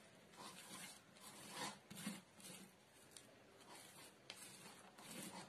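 Faint, irregular rubbing strokes of a hand smearing thick gram-flour paste over colocasia leaves.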